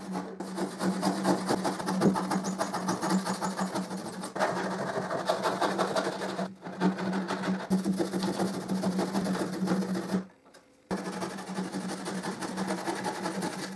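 Backsaw cutting through plywood with quick back-and-forth strokes. The sawing stops briefly about three quarters of the way through, then starts again.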